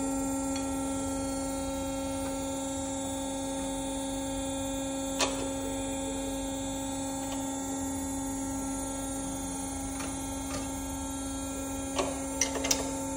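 Steady machine-shop hum made of a few fixed tones. A single sharp metallic click comes about five seconds in, and a few lighter metallic clicks near the end, as a steel hold-down clamp on the milling-machine table is adjusted by hand.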